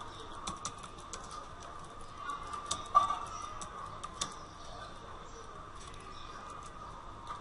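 Computer keyboard keys being typed in irregular clicks, with one sharper, louder click about three seconds in, over a steady high-pitched hum.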